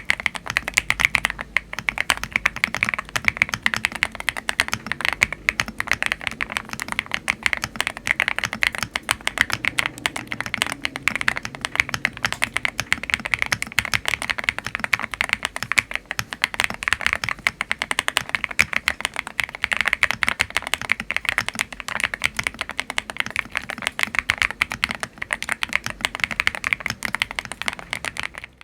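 Continuous fast typing on a GMK70 split mechanical keyboard with Akko Stellar Rose switches and EAO-profile keycaps: a dense run of key clicks that starts abruptly and pauses briefly near the end.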